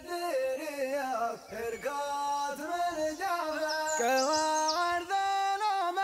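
Background music: an Arabic song, a voice singing long notes that glide from one pitch to the next.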